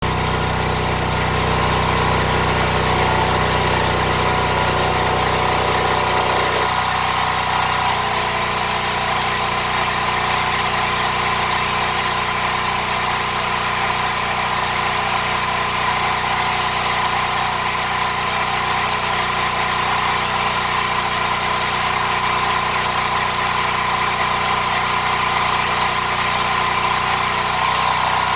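Welding machine running with a steady hum and hiss. The low hum drops back about seven seconds in, leaving a faint even pulsing.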